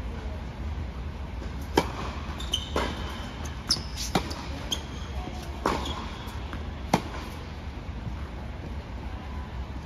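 Tennis ball struck by rackets and bouncing on a hard court during a rally: about six sharp pops over the first seven seconds, with a few brief shoe squeaks between them.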